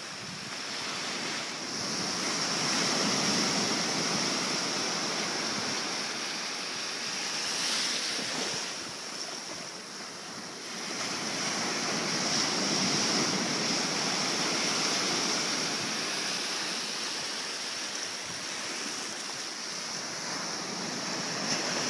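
Small sea waves breaking and washing up a shallow sandy shore. The surf swells and eases every few seconds.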